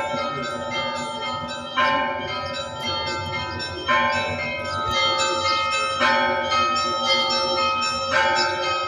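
Russian Orthodox church bells rung together in a peal (zvon): a heavier stroke about every two seconds, with smaller bells striking quickly in between over a steady hum of ringing tones.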